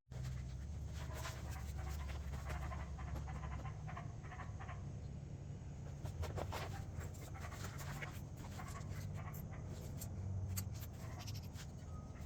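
A dog panting, with scattered light clicks and clinks over a steady low hum.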